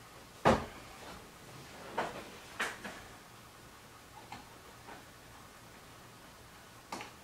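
A few sharp clicks and knocks from the new soft top's front latches being worked against the windshield frame: the loudest about half a second in, lighter ones around two to three seconds in, and one more near the end.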